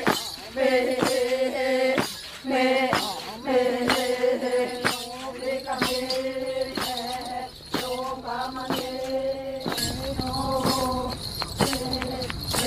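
Chanting in long, steady notes of about a second each, held on one pitch and repeated, with sharp percussive clicks between them. A low rumbling noise comes in near the end.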